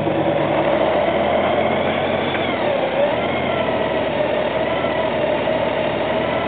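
Honda Gold Wing GL1800 motorcycle's flat-six engine running steadily at low speed, with steady road and air noise.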